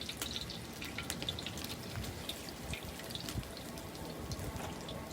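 Fish deep-frying in hot oil: a steady sizzle with many small, irregular pops and crackles.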